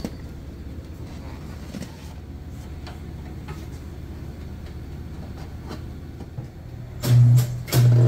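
Quiet handling noises over a low steady background, then about seven seconds in a tyre-changing machine's electric motor starts up with a loud, steady low hum as the turntable turns the tyre. It cuts out briefly and starts again with a click.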